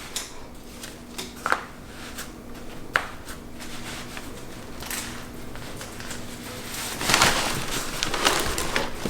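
Handling noise from putting on a baseball cap and bending its brim: a few sharp clicks in the first few seconds, then a rustling, scrunching sound over the last two seconds.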